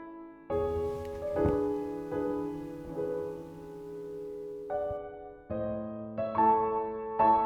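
Background piano music: a slow series of notes and chords, each struck and left to fade.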